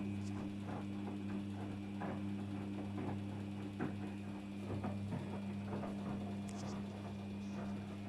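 Daewoo DWD-FT1013 washing machine running a 60°C cotton wash: a steady low motor hum under irregular swishes and soft knocks of the wash and water moving in the drum.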